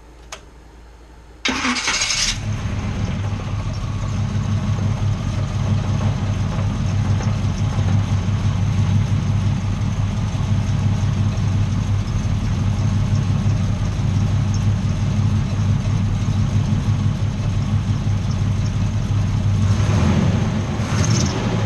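1994 Chevrolet 1500 pickup's engine, just refilled with oil, cranking and catching about a second and a half in, then idling steadily. A short rush of noise rises over the idle near the end.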